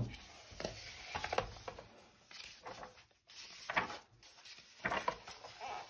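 Hardcover picture book being opened and its pages turned by hand: a short knock at the start, then several soft paper rustles and swishes about a second apart.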